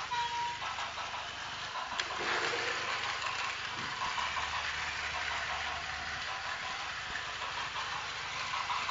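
Battery-powered Plarail toy trains running on plastic track: a steady whirring, rattling noise of small motors and wheels. A short high beep sounds right at the start and a sharp click about two seconds in.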